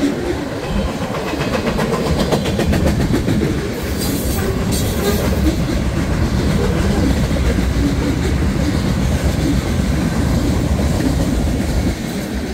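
Freight train cars, autoracks and then tank cars, rolling past close by. A steady low rumble carries the regular clickety-clack of wheels over rail joints, with a brief burst of high-pitched noise about four seconds in.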